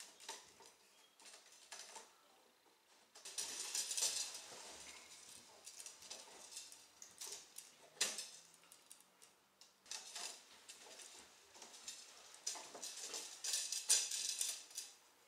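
Fabric-covered kite wing frame being handled and fitted: scattered light clicks and knocks from the spars, with stretches of rustling fabric.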